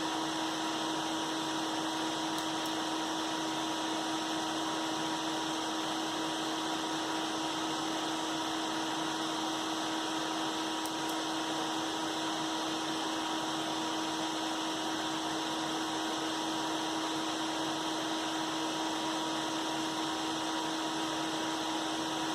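Seven Computer Upgrade King case fans running together at a constant speed: an even rush of air with a steady tone running through it.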